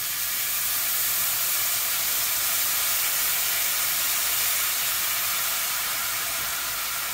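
Chicken stock poured into a hot skillet of seared chicken legs, hitting the pan with a steady hiss and sizzle as it flashes to steam. The pan is being deglazed.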